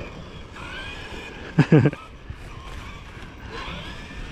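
Dog barking in one quick burst of barks about a second and a half in, over the rising and falling whine of a Traxxas Sledge RC monster truck's brushless electric motor.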